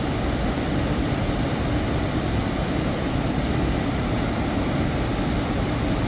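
Swollen, fast-flowing river water rushing in a steady, even, fairly loud stream, as released through open dam gates.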